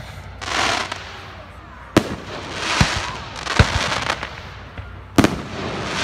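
Aerial fireworks going off: three sharp bangs about a second and a half apart, with bursts of crackling between them.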